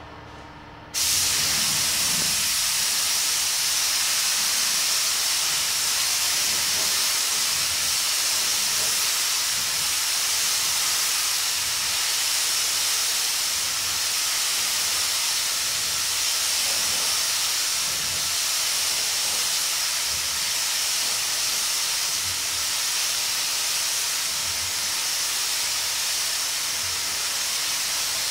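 Iwata AirGunsa spray gun with a 1.3 mm nozzle hissing steadily as compressed air atomizes clear coat. The hiss comes on suddenly about a second in, as the trigger is pulled, and runs unbroken.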